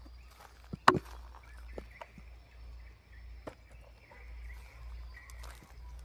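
Handling sounds with the chainsaw switched off: scattered clicks and light knocks, with one sharp, loud knock about a second in. A faint steady high hum sits in the background.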